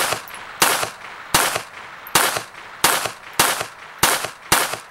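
A SIG Sauer Mosquito .22 LR semi-automatic pistol fires eight quick, evenly paced shots of Norma Tac-22 40-grain rounds, each a sharp crack with a short ringing tail. The pistol cycles through the string with no failure to eject.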